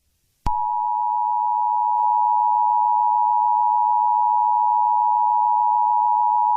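Emergency-alert attention tone: a loud, steady two-pitch electronic tone that starts abruptly about half a second in and holds unchanged, the signal that an alert message is about to follow.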